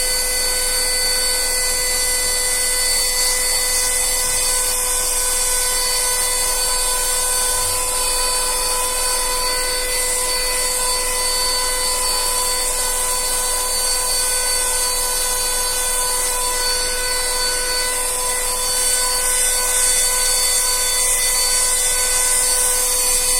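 ZDK Simple vacuum cleaner running steadily: a constant high motor whine over a loud rush of air.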